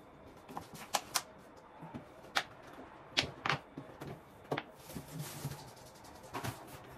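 Food containers being handled in an open refrigerator: a string of sharp plastic clicks and knocks as a clear plastic meat tray is lifted out, with a brief rustle about five seconds in.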